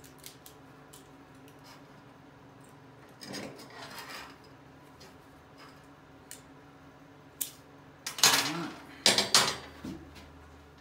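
Small steel parts and hand tools clinking and scraping as they are handled and set down: scattered light ticks, then a few louder clanks near the end.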